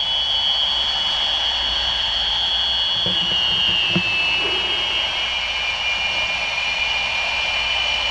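Audio feedback between a pair of 1980s baby monitors as one unit tilts back and forth in front of the other: a steady high whine of several close tones over a hiss, the tones sliding slightly lower about three seconds in.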